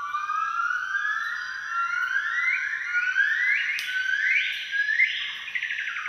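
Golden-cheeked gibbon singing its great call: a series of clear, soaring whoops, each sliding upward in pitch, coming higher and faster one after another. About five seconds in, the call breaks into a quick trill that falls away.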